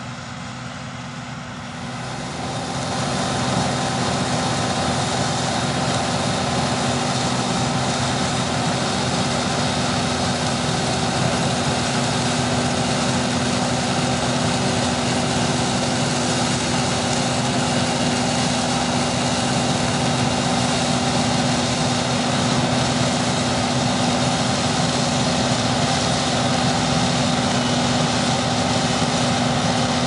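John Deere combine harvester running while harvesting rice: a steady machine drone of engine and threshing gear, with several held hum tones over a dense noise. It grows louder about two to three seconds in, then stays steady.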